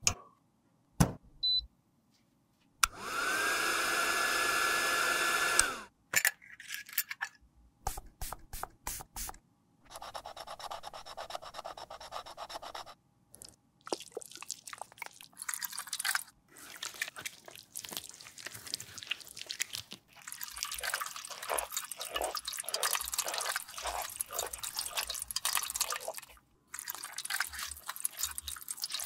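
A run of makeup-tool cleaning sounds. A UV sterilizer cabinet runs for about three seconds with a loud hum whose pitch rises as it starts and then holds, followed by clicks and taps and a steady hiss of about three seconds. From about twenty seconds in comes a quick rhythmic wet squelching, about two squeezes a second, as a makeup sponge is squeezed in soapy water.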